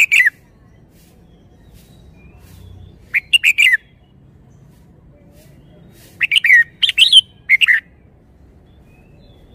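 Red-whiskered bulbul singing short bursts of quick, fluty warbled notes: a brief phrase right at the start, another about three seconds in, and a longer phrase of several notes about six seconds in.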